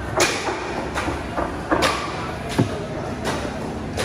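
Heavy machete chopping into a large trevally's carcass on a wooden block: a series of sharp chops, a little under a second apart.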